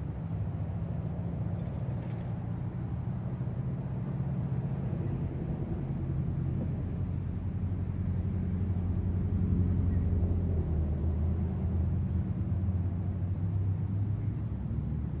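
A low, steady engine rumble in the background, swelling a little around the middle and easing off again.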